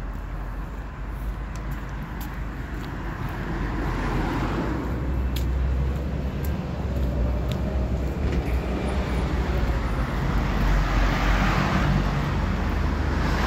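Road traffic noise: vehicles passing on the street alongside, swelling louder about four seconds in and again near the end.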